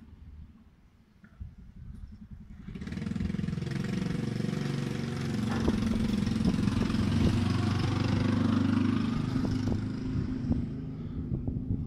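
A motor vehicle's engine passing by: it comes in about three seconds in, swells to its loudest in the middle, and fades away near the end.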